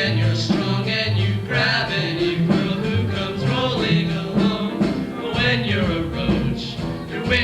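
Music with singing over a bass line that moves from note to note.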